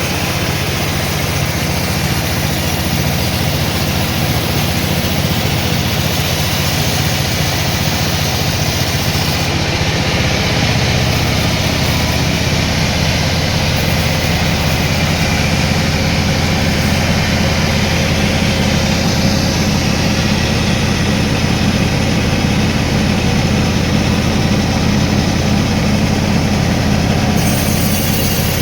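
Sawmill machinery running steadily with a continuous low, engine-like hum. The high hiss above it drops away about ten seconds in and returns near the end.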